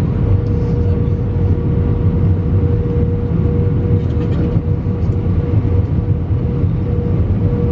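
Cabin noise inside an Airbus A319-132 on approach: a steady low rumble of airflow and its IAE V2500 engines, with a constant mid-pitched hum over it.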